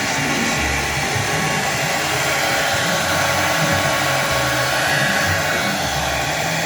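CNC router spindle running with a steady, hair-dryer-like whoosh.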